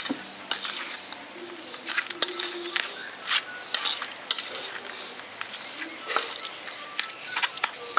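Mashed boiled potato being mixed with spices in a bowl: irregular scrapes and small clicks against the bowl.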